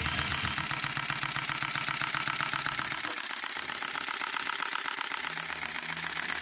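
Nikon D500 DSLR shutter firing in a continuous burst: a rapid, even run of clicks that keeps going without slowing, the sign of a buffer that is not filling up. A low rumble underneath drops away about halfway through, and a steady low hum comes in near the end.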